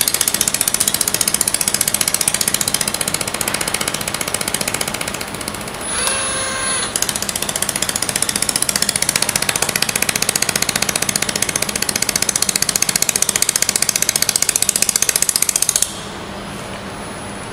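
Robotic pulsed laser welder firing on a metal tube joint: a loud, rapid, even train of snapping pulses. About six seconds in, the pulses pause for roughly a second while a short tone sounds. The pulses stop a couple of seconds before the end, leaving a low steady hum.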